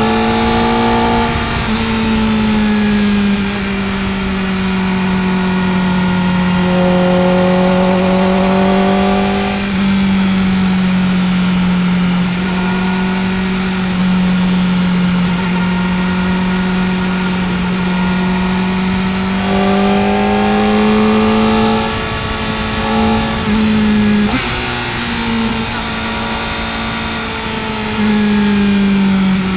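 Kawasaki Ninja ZX-4R's inline-four engine running at high revs under way, its pitch sagging and rising slowly with the throttle, with a couple of quick dips about three-quarters of the way through.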